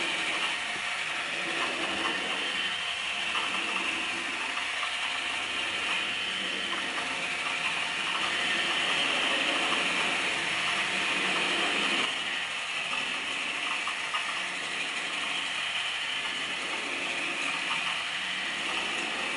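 Turntable drawing machine running: its rotating discs and linked pen arms make a steady mechanical whir with a fine, fast clicking in it. The whir swells and fades gently and drops a little in level about twelve seconds in.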